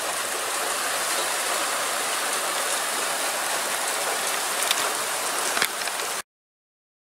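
Rain shower falling steadily, an even hiss with a few sharper drop strikes close by near the end. It stops abruptly about six seconds in.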